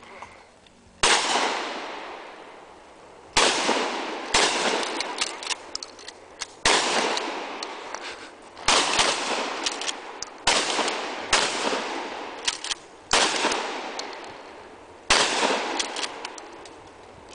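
About nine gunshots from shoulder-fired long guns, irregularly spaced one to two seconds apart, each sharp crack followed by a long echo dying away.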